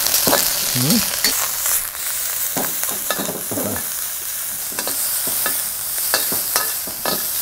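Pieces of fatty pork sizzling and popping as they brown in a hot steel wok, stirred and scraped with a metal wok spatula that clicks against the pan.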